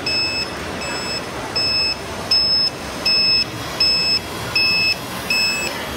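Reversing-alarm beeping from an RC model vehicle's sound module: a steady electronic beep repeating about every three-quarters of a second.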